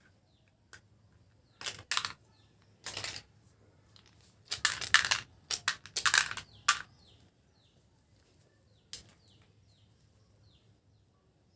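Small hard-shelled candies clattering into and against plastic containers in short bursts of rapid clicks, busiest in the middle, with one last click near the end.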